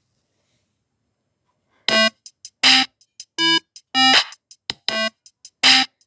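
Silence, then about two seconds in synthesizer music starts: a bouncy repeating pattern of long and short bright notes at changing pitches.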